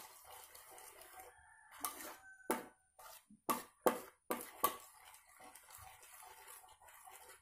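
Metal spoon stirring thick jam in a stainless steel bowl, faint and wet, with about half a dozen light clinks of the spoon against the bowl's side in the middle of the stretch.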